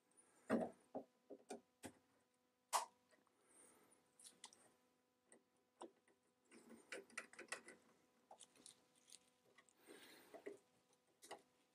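Faint scattered clicks, taps and scrapes of a steel screwdriver and a syringe tip working in a split in a painted wooden chair part while epoxy is injected into the crack. The sharpest clicks come about half a second in and near three seconds.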